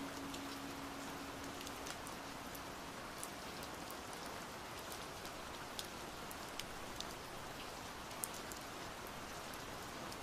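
Steady rain hiss with scattered sharp ticks of single drops. A held low note of music fades out within the first two seconds.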